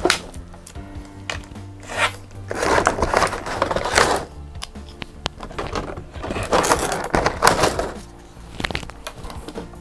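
Crinkling and rustling of thin plastic packaging as small toy figures are handled and unwrapped, in two longer bursts with a few small clicks, over soft background music with steady low notes.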